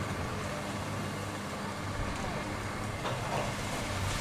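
Heavy demolition machinery running steadily, its diesel engine humming under a noisy rumble, with a faint knock about three seconds in.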